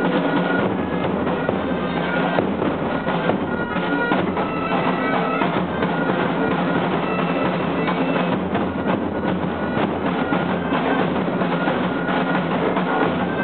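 Indian wedding marching band playing without a break: steady drumming with a melody carried on wind instruments over it.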